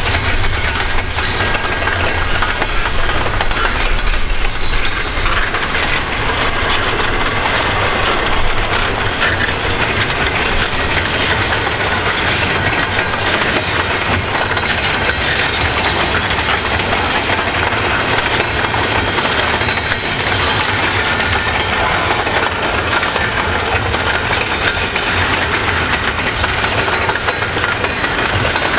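Double-stack intermodal well cars of a freight train rolling past: a steady, loud rumble and rattle of steel wheels on rail, with a fast, constant clicking.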